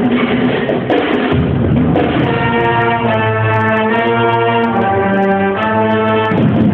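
High school marching band playing: the brass sound a string of held chords that change every half second to a second, with sharp percussion strikes throughout.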